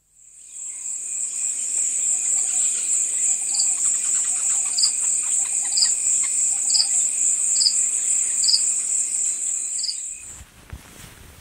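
Night-time cricket chirring: a steady high trill with a short, higher chirp repeating about once a second. It fades in at the start and cuts off abruptly about ten seconds in.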